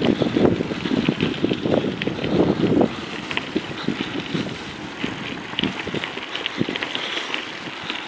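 Mountain bike tyres crunching and rattling over a gravel trail, with wind on the microphone. The crunching is heaviest for the first three seconds, then eases.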